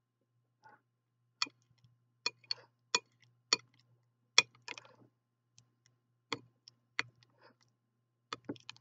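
Metal spoon clinking against the side of a glass bowl while stirring thick mashed avocado and ranch dressing: a dozen or so sharp, irregular clinks, often in quick pairs.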